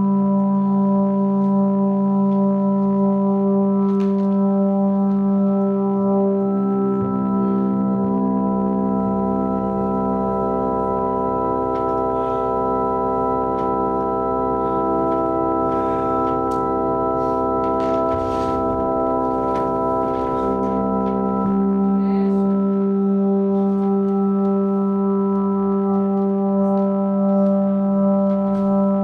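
Drone music of long held chords over a deep steady bass note. From about seven seconds in, more notes join the chord and fill it out, and it thins back to the opening chord after about twenty-one seconds.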